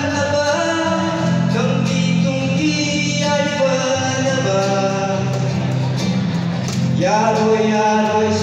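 A man singing live to his own acoustic guitar accompaniment, holding long notes.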